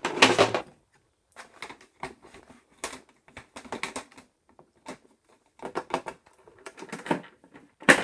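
Plastic clatter and rustle as the bag cover of a Hoover Dimension upright vacuum is handled and latched shut, loudest in the first second. It is followed by a string of scattered clicks and knocks from the plastic body being handled. The vacuum is switched off.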